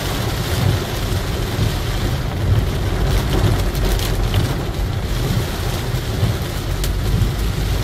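Heavy rain and strong wind pounding a moving car, heard from inside the cabin: a dense, steady hiss of rain over a deep rumble.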